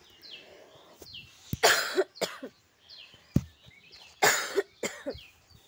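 A woman coughing in two bouts, about a second and a half in and again about four seconds in, each a hard cough followed by a shorter one: a cough from a cold that has left her hoarse. Faint, quick falling chirps repeat in small groups behind it.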